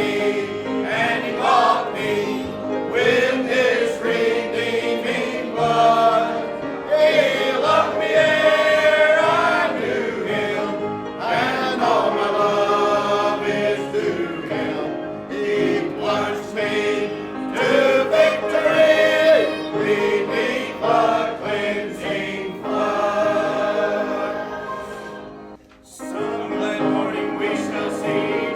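Church congregation singing a gospel hymn together in chorus, breaking off briefly near the end before carrying on.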